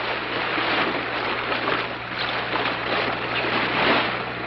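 River rapids rushing, the whitewater surging louder and softer every second or so.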